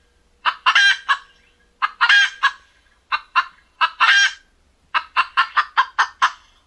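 A gamebird calling in short, loud clucking calls, mostly in pairs and threes, ending with a quick run of about seven calls.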